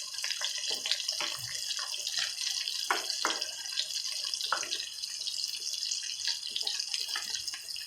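Food sizzling over high heat: a steady hiss with scattered crackles and pops as the juices spatter.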